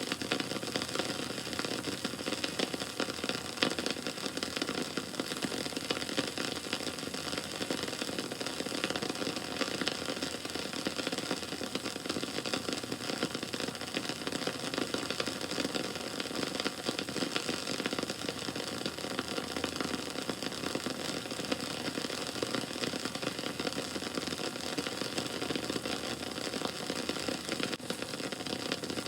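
Wood bonfire burning, with steady dense crackling and small pops.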